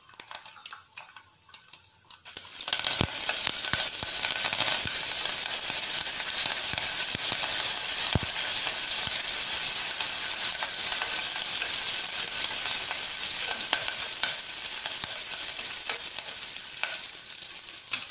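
Fresh curry leaves dropped into hot oil in a clay pot: a sudden loud sizzle and spluttering sets in about two and a half seconds in and keeps going, full of small crackles, as a wooden spatula stirs the tempering of mustard seeds, cumin and dried red chillies.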